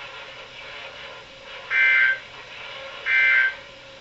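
NOAA Weather Radio SAME end-of-message data bursts: two short bursts of warbling two-tone digital data, each about half a second, roughly a second and a half apart, over the receiver's steady hiss and a faint hum. They mark the end of the severe thunderstorm warning broadcast.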